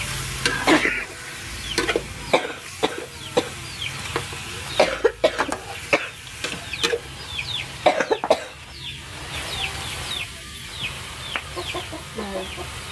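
Spatula stirring duck meat in a wok, scraping and knocking against the pan in irregular strokes for about the first eight seconds. All through, chicks peep in high, falling calls about twice a second.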